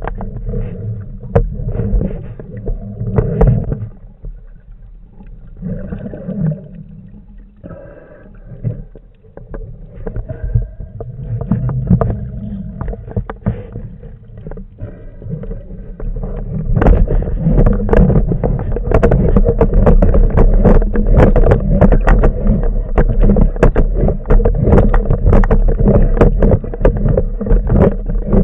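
Underwater water noise: a low rumble of moving water with crackling clicks, getting louder and busier a little past halfway.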